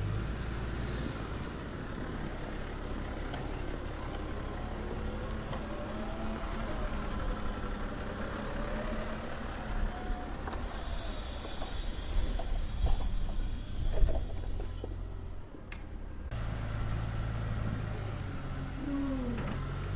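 Low, steady truck-engine rumble. About ten seconds in, a loud hiss lasts some four seconds and cuts off sharply, with a few knocks during it.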